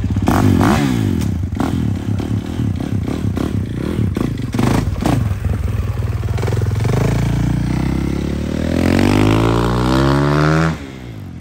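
KTM 450 single-cylinder four-stroke dirt bike engine running, with scattered clattering. From about six seconds in it revs up in one long rising pull as the bike accelerates away. The sound drops off suddenly near the end.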